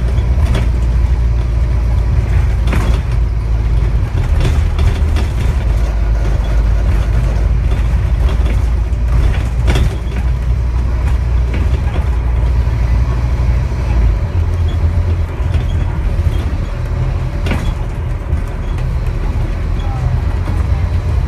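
Scania N230UD double-decker bus engine droning heavily at a low pitch, heard from inside the cabin, with scattered knocks and rattles from the bodywork. About 14 seconds in, the engine note changes.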